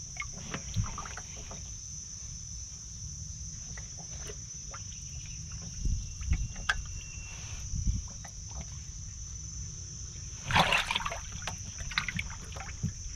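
Water splashing and sloshing in a shallow plastic tub as a hand grabs at live catfish and the fish thrash, with scattered small splashes and one loud splash about ten and a half seconds in. A steady high cricket drone runs underneath.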